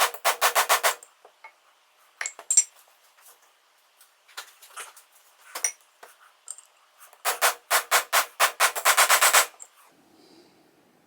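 Quick runs of sharp hammer taps driving a fork oil seal into a motorcycle fork slider: a short flurry at the start, a few single taps, then a longer fast flurry near the end.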